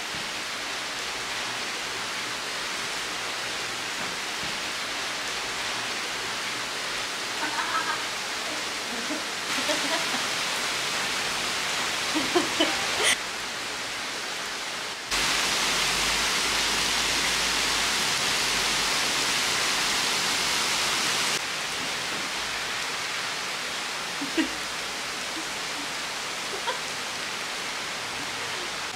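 Heavy rain pouring down in a steady hiss, whose level jumps up and down a few times, loudest for several seconds past the middle. A few short, sharper sounds stand out over it around the middle.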